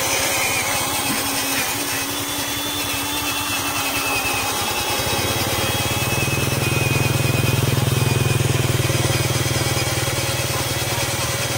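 Homemade battery-powered ride-on truck driving over a dirt road, its electric drive motor and gears running with a thin, wavering whine. A motorcycle engine passes, growing louder from about five seconds in and easing off near the end.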